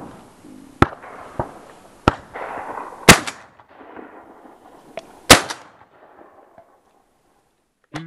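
Shotgun shots at flying doves: two loud, close shots about two seconds apart, with several fainter shots before and between them.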